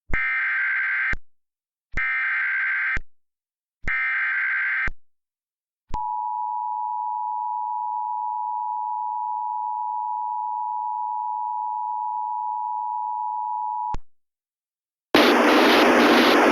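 Emergency Alert System tones: three one-second bursts of SAME header data tones, then the two-tone EAS attention signal held steady for about eight seconds, announcing a tornado warning. About a second before the end, a louder, noisy sound begins as the broadcast message starts.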